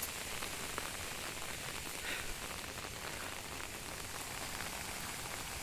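Rain falling steadily on the forest, a dense patter of small drops over an even hiss.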